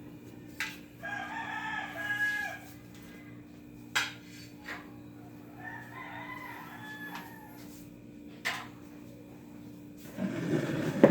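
A rooster crowing twice, each crow lasting about a second and a half, with a few sharp knocks between the crows and a louder rustling burst near the end.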